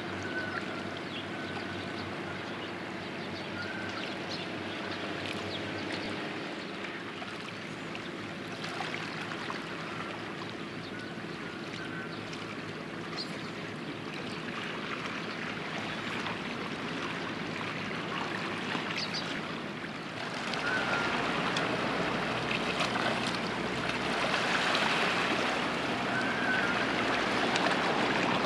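Harbour ambience: water lapping under a steady low hum of machinery, with a few short high chirps; the water noise grows louder and hissier about twenty seconds in.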